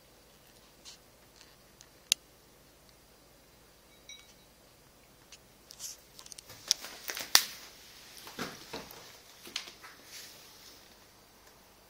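Handling noise from a phone being moved while filming: scattered sharp clicks, then a busier stretch of clicks and rustling from about halfway through, with one loud click in the middle.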